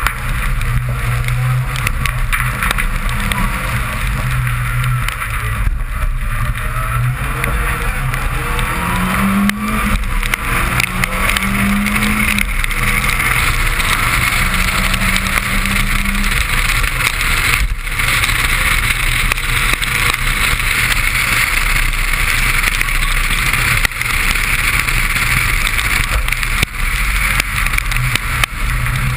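Suzuki Swift rally car heard from inside the cabin, its engine working hard with the pitch rising and falling through the stage. Underneath is a steady hiss of tyres and spray on a wet road.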